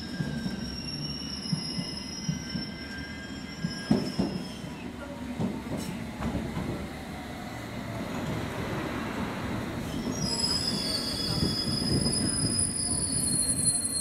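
London Underground S7 Stock train on the platform road, its wheels squealing in thin high tones over the train's rumble. The squeal is loudest in the last few seconds, and a sharp knock comes about four seconds in.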